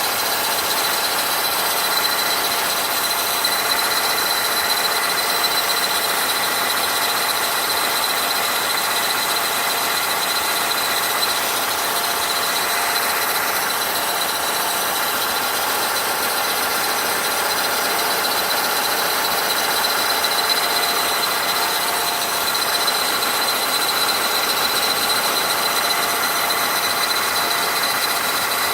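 Renault Duster engine running steadily with a continuous high-pitched whistle coming from the timing belt side of the engine.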